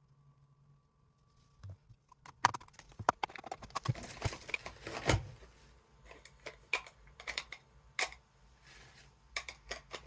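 Clicks, taps and light knocks of small craft supplies being handled on a work table, a busy cluster from about two seconds in, then scattered taps.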